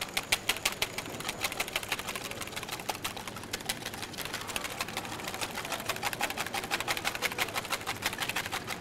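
Wire balloon whisk beating egg whites by hand in a bowl: rapid, even clicking strokes, several a second, as the whites are whipped toward stiff peaks.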